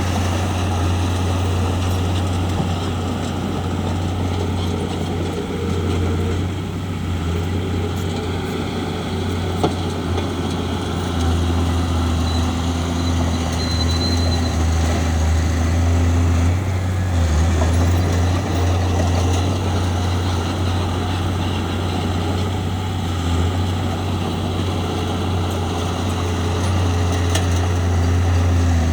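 Bulldozer's diesel engine running steadily: a deep continuous drone whose pitch shifts slightly now and then.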